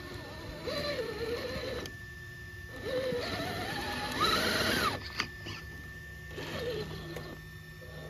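Electric motor and geared drivetrain of a 1/6-scale Axial SCX6 Honcho RC rock crawler whining in short throttle bursts as it crawls over a tree root, the pitch rising and falling with the throttle. The loudest burst climbs sharply in pitch about four seconds in.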